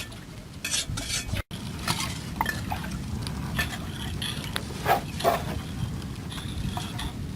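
Scattered scraping and clinking of hand tools working on dirt and stone, with short knocks here and there over a steady low background.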